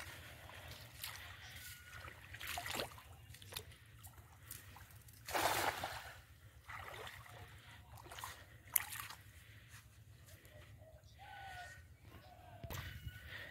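A cast net lands on the pond surface with a splash about five and a half seconds in, the loudest sound here, amid quieter sloshes of water around the wading thrower.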